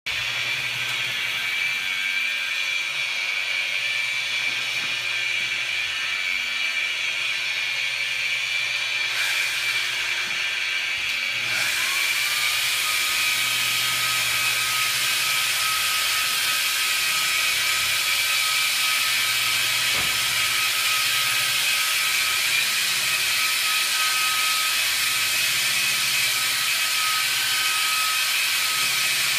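Handheld electric angle polisher running with a diamond honing pad on a stone countertop: a steady high whine over the pad's scrubbing on the stone. About twelve seconds in it gets a little louder and a second, lower whine joins in.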